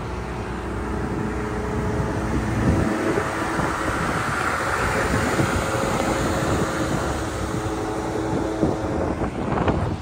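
Wind blowing across the microphone over a steady low hum, with a broad rushing sound that swells about halfway through and fades again.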